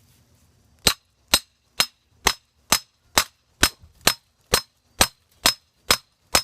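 Hammer blows driving a metal cement stake into the ground: about a dozen sharp, ringing metal-on-metal strikes at a steady two a second, starting about a second in.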